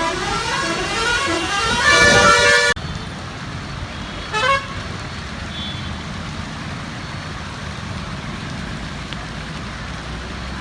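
Road traffic: a vehicle engine rising in pitch as it speeds up, growing louder until it cuts off abruptly a little under three seconds in. After that comes a steady wash of traffic noise, with one short vehicle horn toot about four seconds in.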